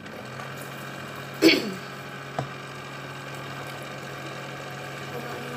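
A kitchen appliance switched on to heat the oatmeal, running with a steady electric hum. About one and a half seconds in there is a short, loud sound that falls in pitch, and a small click a second later.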